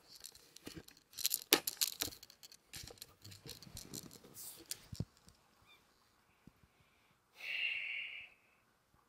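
Paper food wrapper being handled: a run of crinkling, tearing crackles and clicks over the first five seconds. A short hiss follows about seven and a half seconds in.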